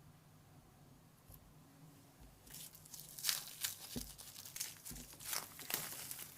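Crinkly tearing and rustling of something being handled, starting about two and a half seconds in as a run of quick, scratchy crackles.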